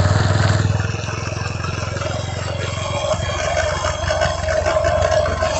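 TVS Apache RTR 160 4V motorcycle running on the road, engine and chain drive heard from close to the chain, with a steady whine over the engine note. This is the annoying noise the owner traces to bent teeth on the worn front sprocket.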